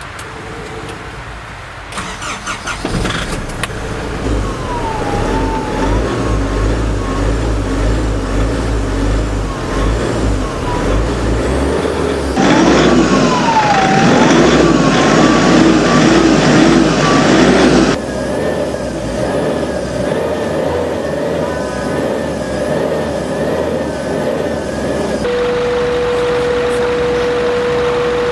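Truck engine cranked by the starter for about a second and catching, then running and being revved up and down over and over, loudest in the middle stretch, heard at the exhaust pipe. Near the end a steady single tone sounds over the engine.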